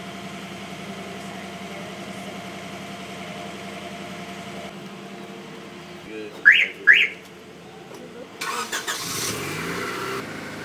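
A steady low hum, then a car remote's two short rising chirps as a minivan is unlocked. About two seconds later comes a louder rush of noise with a low rising tone as the van is entered.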